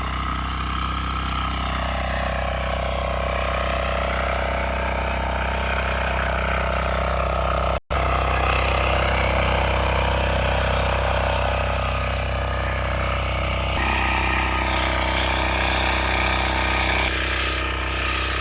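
Engine of a ploughing machine running steadily under load as it works the soil, its note shifting a little. The sound breaks off for an instant about eight seconds in.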